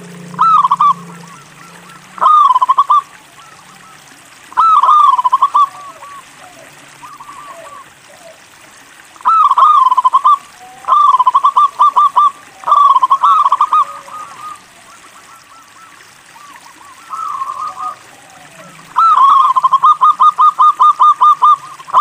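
Zebra dove (perkutut) singing: short phrases of rapid, rolling cooing notes every second or two, with a longer run of quick notes near the end.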